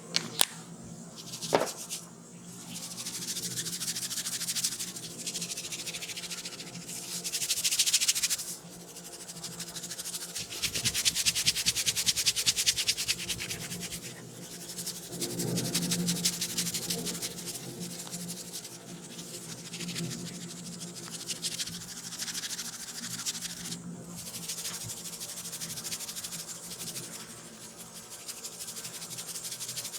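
Close-miked rubbing and scratching on hair and scalp during an ASMR head massage, coming in swells, with a stretch of quick scratching strokes in the middle and a couple of sharp clicks near the start.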